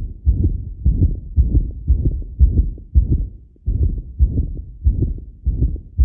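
Heart sounds recorded through an Eko CORE 500 digital stethoscope, played back as a quiz case of abnormal heart sounds with a murmur. The beats come in a quick, uneven run with a rough sound filling the gaps between them, easing off briefly just past the middle.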